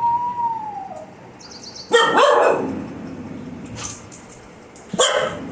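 A pet dog's drawn-out howling whine that trails off about a second in, then two loud barks about three seconds apart.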